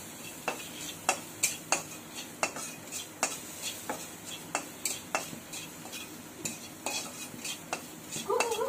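Long metal spoon stirring food in a black kadai on a gas stove, knocking and scraping against the pan in sharp clicks about twice a second, over a faint sizzle of frying.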